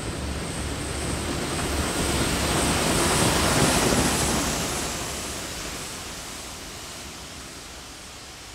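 Steam train going away: a rushing noise that swells to its loudest about three seconds in, then dies away steadily.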